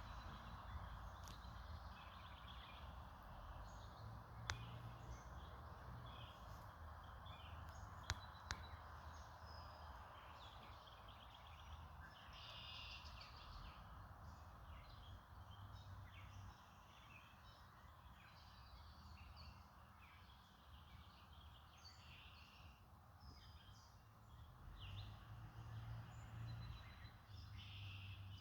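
Red-bellied woodpecker chiselling at its nest hole in a few scattered sharp taps, the loudest about four and a half and eight seconds in, over faint chirping of small birds.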